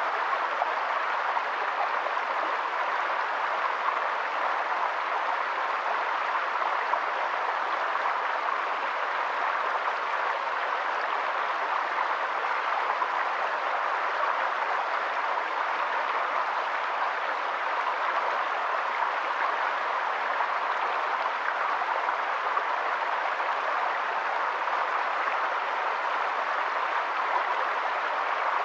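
Shallow rocky stream flowing over stones and a small cascade, a steady, even splashing of water with no breaks.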